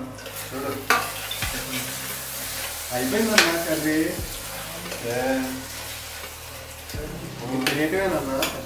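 A steel spoon stirring diced potatoes and tomatoes frying in a stainless-steel pan. The food sizzles steadily, and the spoon scrapes and clicks against the metal several times.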